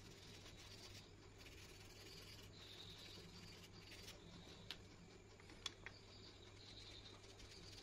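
Faint scratching of a coloured pencil shading across paper, over a low steady hum. A few light clicks come about two-thirds of the way through as one pencil is put down and another picked up from the pile.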